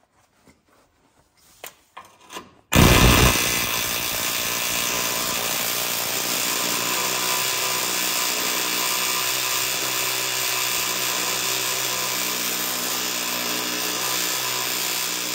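Craftsman pneumatic air hammer with a flat chisel bit, running in one long unbroken burst against a steel frame rivet to shear off its head. It starts suddenly about three seconds in and stays loud and steady.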